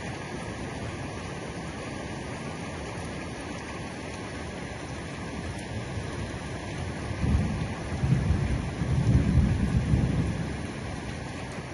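Heavy rain falling steadily on the roof. About seven seconds in, a low rumble of thunder swells for about three seconds, louder than the rain, then fades.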